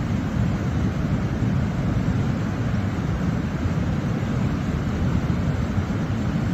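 Waterfall: a steady low rush of falling water that does not change.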